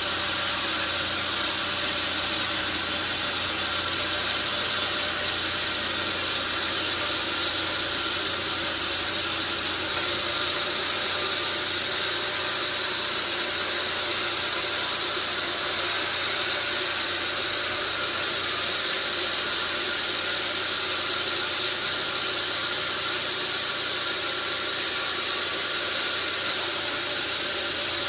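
Sawmill saw running steadily through a hardwood log: a constant, unbroken whine of several steady tones over a high hiss.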